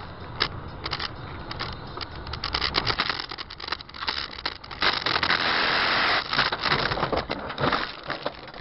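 Leaves, twigs and branches hitting a moving car's body and windscreen. Dense crackling and scraping build up from a few scattered snaps and peak in a loud stretch about five seconds in, with snaps and knocks continuing after.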